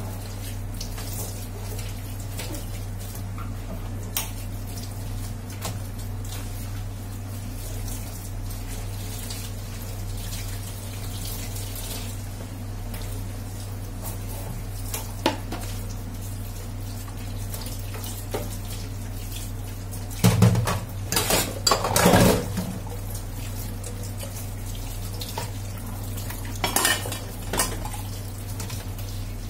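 Dishes being washed in a stainless steel sink: scattered clinks and knocks of plastic bowls and utensils against each other and the sink, with water from the tap, and a louder spell of clattering about two-thirds of the way through. A steady low hum runs underneath.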